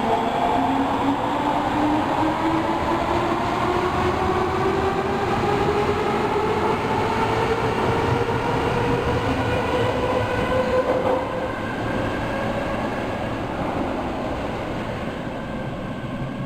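Osaka Metro Tanimachi Line subway train accelerating, its inverter-driven traction motors whining in several tones that climb steadily in pitch over the rumble of the wheels; the sound eases off over the last few seconds.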